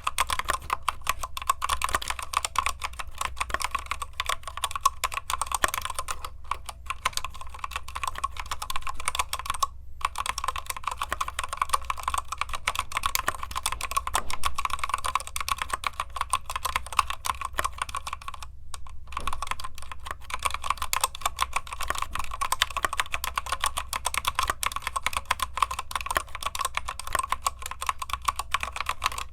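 Fast, continuous typing on a Keychron K8 Retro mechanical keyboard with red linear switches, a steady clatter of keystrokes broken by short pauses about ten seconds in and again near nineteen seconds.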